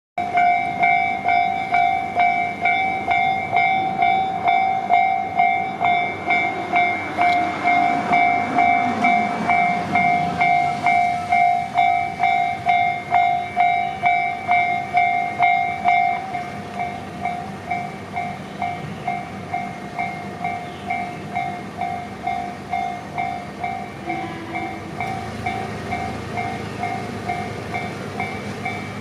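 Japanese railway level-crossing alarm bell ringing in a steady two-tone ding-ding, about two strikes a second, while a train passes over the crossing. The train adds wheel clicks and a falling whine between about 6 and 12 seconds in. The bell gets quieter about 16 seconds in.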